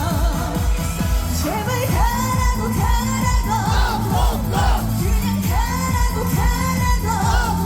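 Korean trot pop song with a singer's voice over a steady beat.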